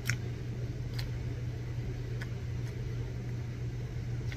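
Steady low hum of convenience-store equipment such as refrigerated coolers or ventilation, with a few faint clicks.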